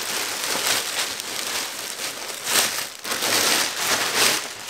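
Clear plastic packaging bag crinkling and rustling in irregular swells as a snowmobile bib is pulled out of it.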